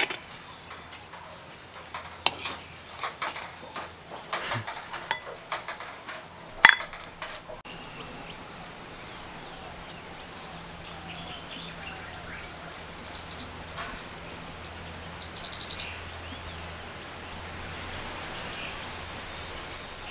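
A spoon scraping and tapping against a clay pot while sambol is served, a series of clicks and knocks with one sharp knock about six and a half seconds in. After that, faint outdoor ambience with small bird chirps and a low hum.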